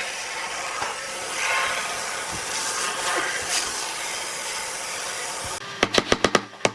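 Steady rasping hiss of wood being cut or abraded by a tool. Near the end it stops and a fast, even run of sharp drum hits from music takes over.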